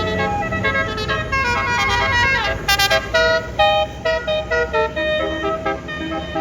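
A bus's basuri telolet horn, a multi-note musical horn, playing a fast melody of short stepped notes, with a falling slide about two seconds in, over the low rumble of traffic.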